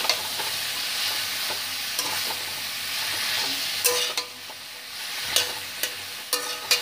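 Mixed vegetables sizzling in hot oil in a wok as they are stir-fried, with sharp knocks of the spatula against the metal pan about once a second. The sizzle drops briefly past the middle.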